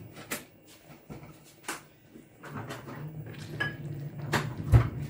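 Kitchen handling clatter: a scattering of clicks and knocks as containers and a cupboard are worked while seasoning a pot of sauce, the loudest a dull thump near the end, with a low hum underneath in the second half.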